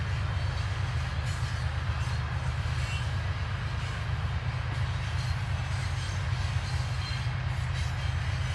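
Fully loaded covered hopper cars of a potash freight train rolling steadily past: a continuous low rumble of steel wheels on the rails.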